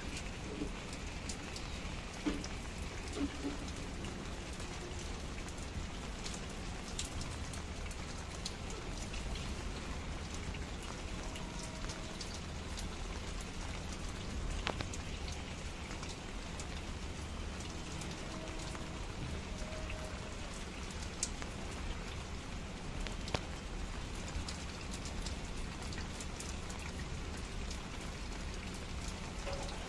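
Steady rain falling, with many separate drops ticking close by on wet surfaces.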